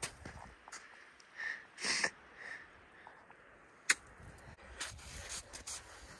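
Crampon-shod boots stepping into firm, icy snow, with sharp crampon clicks at the start and again about four seconds in, then crunching kicks into the slope. A few short, hard breaths from the climber come about two seconds in.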